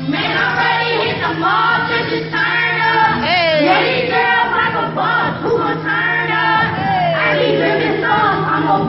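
Live vocal performance by a child into a microphone over a backing track played through a PA system, with crowd voices underneath.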